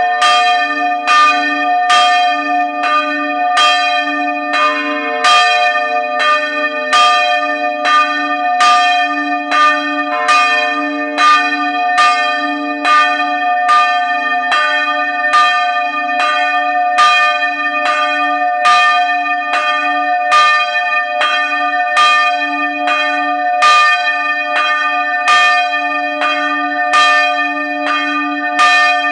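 Church bells swinging and ringing close up inside the belfry, their clappers striking about twice a second in a steady, unbroken peal. The long ringing tones of at least two bells overlap and alternate.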